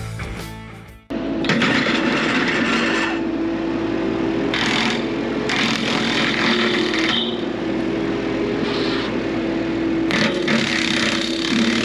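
Bobcat E42 mini excavator running steadily with its hydraulic brush cutter attachment, a steady whine over the engine and several bursts of harsh noise, at about 1.5, 4.5, 5.5, 8.5 and 10 seconds. A stretch of music fades out just before the machine cuts in.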